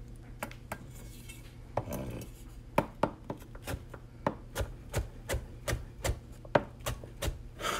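Chef's knife dicing peeled butternut squash on a cutting board: a few scattered taps, then from about three seconds in a steady run of knife strokes, about three a second.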